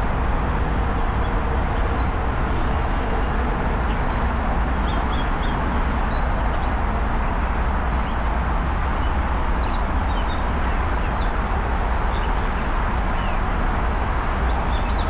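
Wild birds chirping, with many short high calls scattered throughout, over a steady low rumbling background noise.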